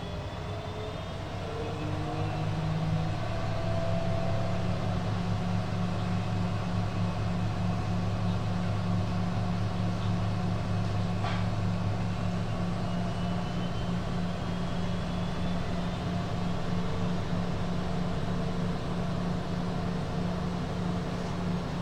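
Schulthess washing machine running: a steady low motor drone that swells over the first few seconds and then holds, with a faint high whine slowly rising in pitch and a single click about eleven seconds in.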